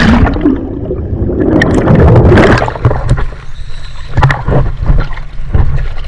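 Scuba diver's backward-roll entry into the sea: a splash right at the start, then a rush of bubbling underwater around the camera for about two and a half seconds. The camera then breaks the surface into small splashes of choppy water with wind buffeting the microphone.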